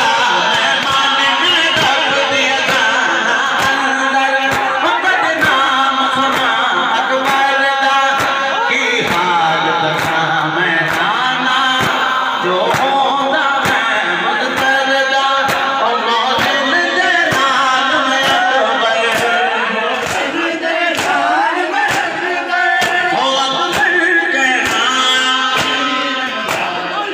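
A man's voice reciting a noha (Shia mourning lament) over a microphone and loudspeaker, with a crowd of men chanting along, and hand slaps on bare chests (matam) keeping a steady beat.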